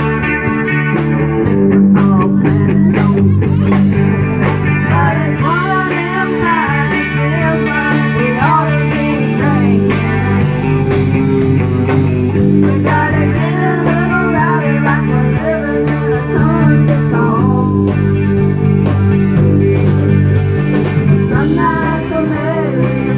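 Live outlaw country band playing: electric guitar and drums with a lead line bending in pitch, over a steady cymbal beat.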